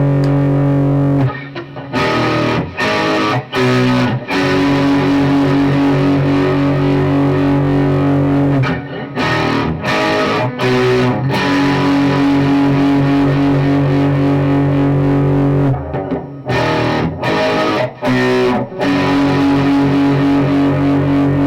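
Electric guitar with Fleor Alnico 5 two-wire humbucker pickups, played with a distorted tone. Long held chords alternate with short bursts of choppy, stopped chords, three times.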